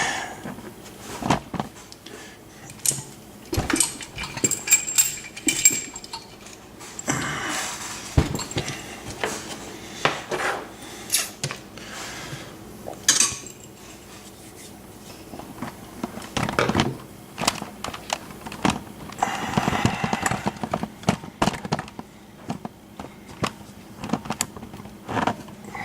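Metal clinks, clicks and scrapes as a brass safe deposit box lock and small tools are handled and set down on a hard surface, with short stretches of scraping.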